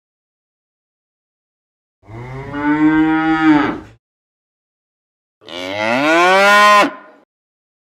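A cow mooing twice: a call of about two seconds, then after a short gap a second moo that rises in pitch.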